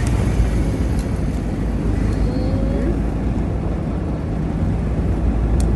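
Car engine and road noise heard from inside the cabin while driving, a steady low rumble, with a few light clicks near the end.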